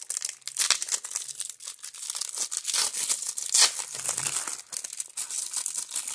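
Foil-lined wrapper of a 1994 Topps Stadium Club baseball card pack crinkling and tearing as it is ripped open and the cards are pulled out: a dense run of sharp crackles, the loudest a little past halfway.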